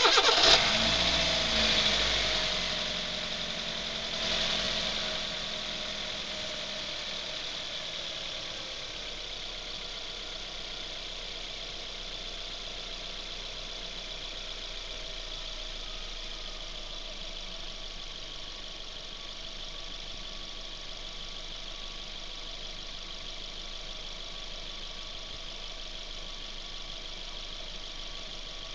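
Suzuki Ignis engine starting, running at a raised speed for a few seconds, then its pitch sliding down as it settles into a steady idle.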